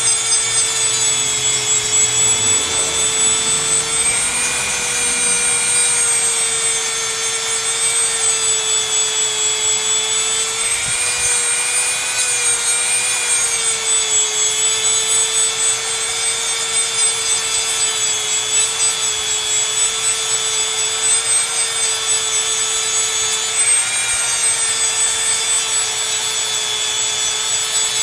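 Dremel 100 rotary tool running with a steady high whine, its bit grinding paint off a composition doll arm; the pitch dips slightly now and then as the tool is pressed to the work.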